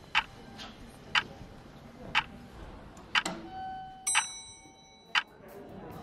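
Regular ticking, about once a second, with a fainter tick between some beats. About four seconds in, a short held tone is followed by a bright ringing ding.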